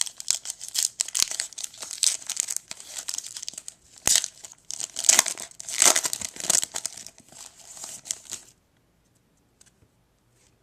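Plastic trading-card pack wrapper crinkling and tearing as the pack is opened, a dense run of crackles that stops abruptly about two seconds before the end.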